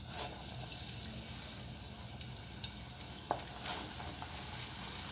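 Cornstarch-battered soft-shell crabs deep-frying in hot oil: hissing that starts suddenly as they go in and keeps going hard, with scattered pops and crackles.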